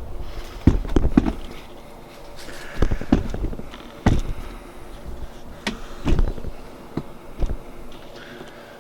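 Irregular knocks and clunks, about ten in all with some in quick pairs, from hands and tools handling the liftgate and its gas strut fittings.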